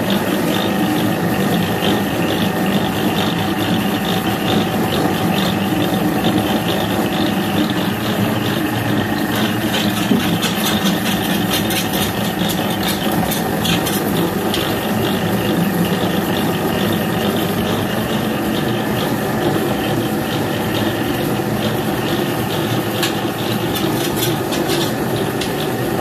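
Belt-driven rice-dough kneading machine running steadily, its paddle churning cooked rice dough in a metal bowl, with scattered clicks and knocks.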